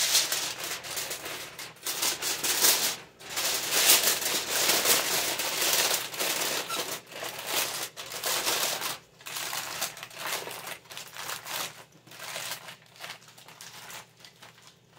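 Aluminium foil being folded and crimped shut around a food pouch by hand: continuous crinkling and crackling that thins out over the last few seconds.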